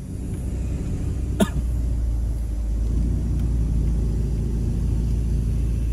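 Peugeot 308 driving over a rough off-road track, heard from inside the cabin: a steady low rumble of engine and tyres that swells over the first second, with one sharp knock about a second and a half in.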